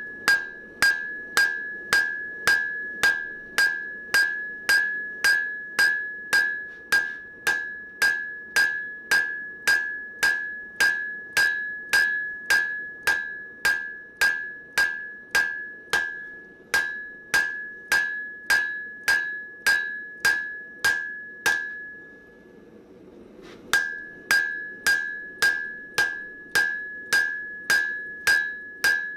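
Hand hammer striking hot mild steel on an anvil, about two blows a second with the anvil ringing after each, drawing the shovel blank out to width. The blows pause briefly about three-quarters of the way through, then resume at the same pace.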